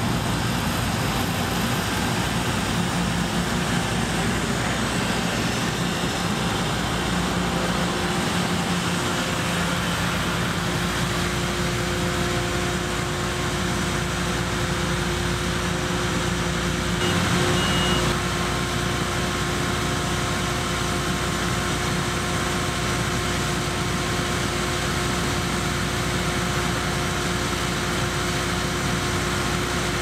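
Combine harvester cutting canola: the engine and threshing machinery run steadily, with a faint steady whine coming in about a third of the way through.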